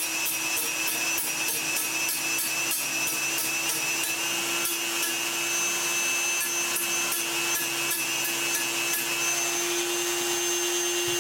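Rotary tool with a cut-off disc grinding off the heads of metal rivets on a stabilizer's metal case. The high motor whine is steady, and the disc scrapes against the metal about four times a second. About nine seconds in the scraping stops and the motor runs on alone.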